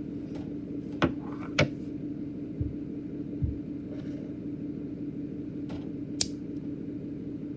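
A steady low hum with a few scattered clicks and light taps, the sharpest one about six seconds in.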